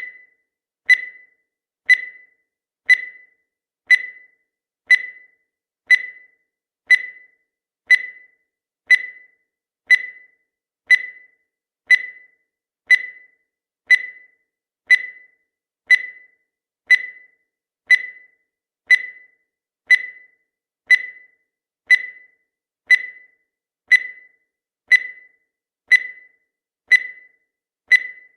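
Countdown timer's sound effect: a short, high-pitched electronic beep once every second, each one dying away quickly.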